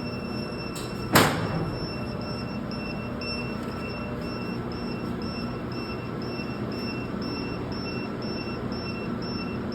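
A UPS output circuit breaker being closed: one sharp, loud clack about a second in. After it, the steady hum of the running UPS cabinets, with a faint, evenly pulsing high tone.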